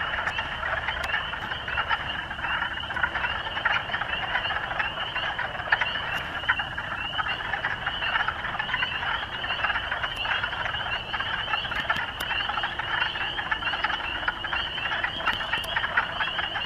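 Wood frogs calling in a dense chorus, many overlapping calls with no break. It is the males' spring breeding chorus.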